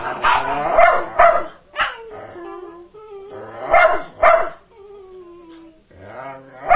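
Two whippets, an adult and a puppy, play-barking at each other in repeated short bursts during a tug game, with drawn-out whines between the barks, one slowly falling in pitch past the middle.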